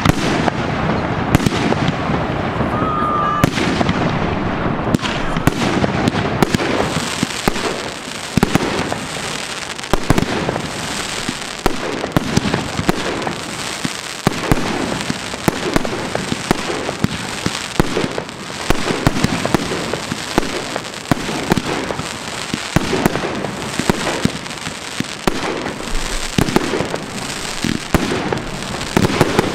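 Display fireworks going off in quick succession: aerial shells bursting with sharp bangs and crackling, many reports a second over a continuous rumble.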